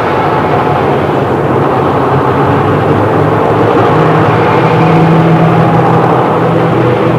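Cartoon train sound effect: a steady, loud running noise of a train with a low hum that grows stronger about halfway through.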